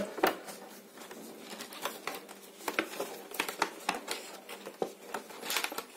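Cardboard retail box with a plastic window being handled and its end flap pulled open: scattered light taps, rustles and clicks, coming more often a little under halfway through and again near the end.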